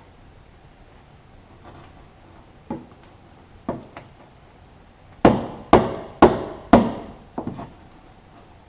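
Metal blows on a 1946 Chevy's steel rear fender during dent repair: a few light taps, then four loud strikes about half a second apart with a short ring after each, then lighter taps. This is panel-beating to work the crease out of the sheet metal.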